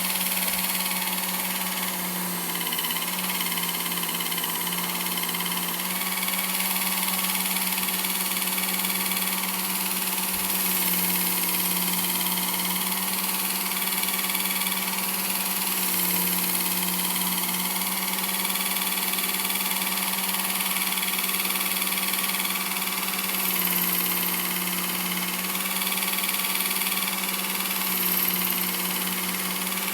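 Work Sharp Ken Onion Edition knife sharpener with its blade grinding attachment running a leather stropping belt, a steady motor hum that shifts slightly every few seconds as the knife is stropped.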